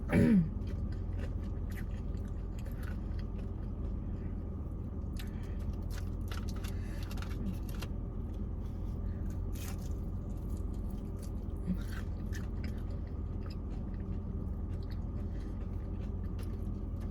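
Close-up chewing and biting on crunchy fast food, with scattered small crunches and mouth clicks over a steady low hum. A brief falling tone is the loudest sound, at the very start.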